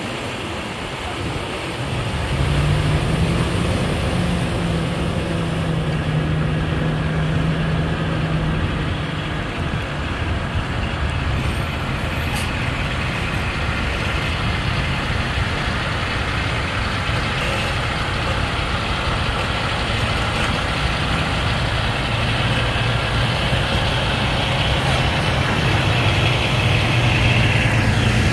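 Diesel semi trucks hauling shipping containers and empty container chassis roll past close by, one after another, engines running with tyre and road noise. It grows louder a couple of seconds in as one truck passes, and again near the end as the next one comes up.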